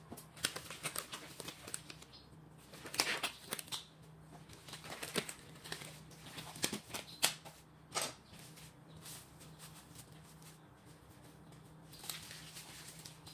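Disposable gloves being pulled on and plastic sheeting being handled: irregular rustling, crinkling and snapping, loudest about three seconds in and again around seven to eight seconds, over a steady low hum.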